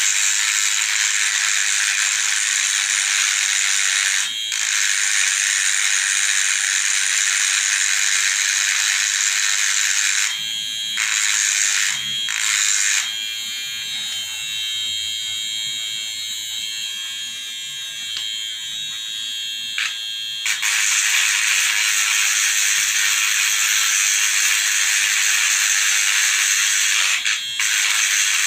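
A loud, steady high-pitched hiss, like a buzzer or electronic noise. It cuts out briefly a few times and turns quieter for several seconds in the middle.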